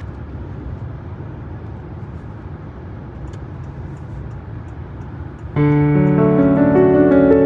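A steady low background rumble, then about five and a half seconds in, background piano music starts and is louder than the rumble.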